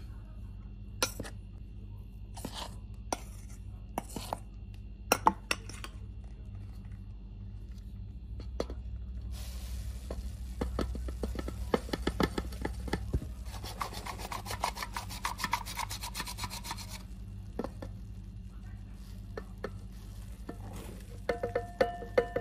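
A hand-operated flour sifter is worked over a bowl, giving a dense rasping full of rapid clicks as dry powder is sifted in. Before that come a few separate sharp knocks, and percussive music with a cowbell starts near the end.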